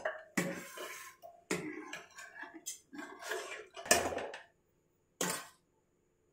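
A metal ladle clanking and scraping against an aluminium pressure cooker and small steel bowls, about five separate sharp knocks, each trailing off, as leftover masala is tipped into the pot.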